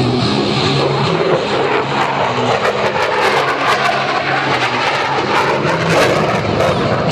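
Loud, steady jet engine noise of a General Dynamics F-16 Fighting Falcon flying past during a 4-point roll.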